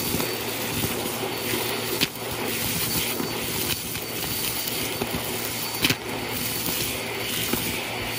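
Vacuum cleaner running steadily as its hose wand sucks up a pile of dust, hair and small hard debris from carpet. Now and then a piece shoots up the hose with a sharp click, the loudest about six seconds in.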